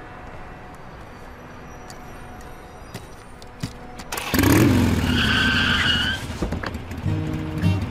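A click, then a loud burst of car engine revving with a high tyre-squeal whine lasting about two seconds. Music starts near the end.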